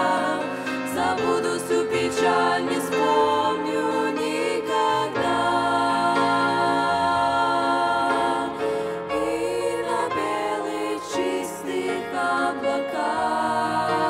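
A small group of young women singing a Russian-language Christian hymn together in harmony into microphones, holding long sustained notes.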